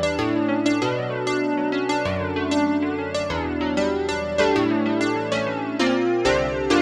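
Yamaha S03 synthesizer played with both hands on one of its factory keyboard voices: struck chords over a bass note that changes about every second.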